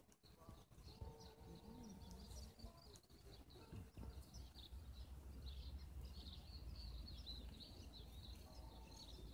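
Faint outdoor ambience: small birds chirping on and off in the distance, busier in the second half, over a low steady rumble.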